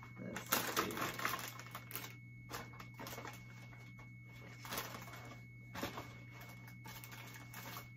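Plastic-wrapped packages and a cardboard item rustling and crinkling as they are handled and pushed into a plastic basket, in irregular bursts with short pauses.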